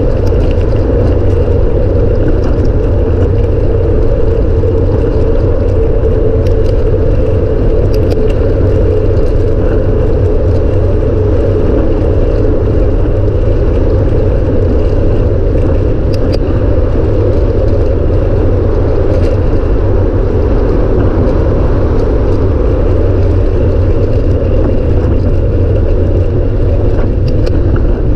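Steady freeway traffic noise of cars and trucks passing in the lane beside a bicycle on the shoulder, under a loud, deep rumble of wind on the bike-mounted microphone. A few faint clicks are heard now and then.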